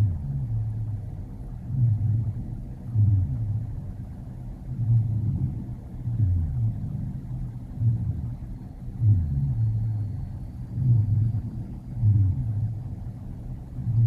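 Rhonchi: low-pitched, snoring, rattle-like lung sounds that swell and fade again and again with the breathing. They are a sign of secretions in the bronchi, and usually clear after coughing.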